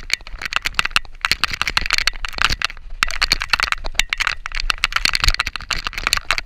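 Mountain bike clattering and rattling over a bumpy grass descent: a dense run of irregular clicks and knocks over a steady rolling hiss.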